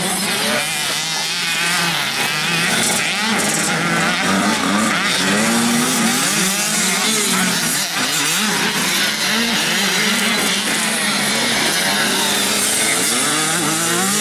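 Several motocross bikes' engines revving, their pitch rising and falling with each throttle change and gear shift, several bikes overlapping.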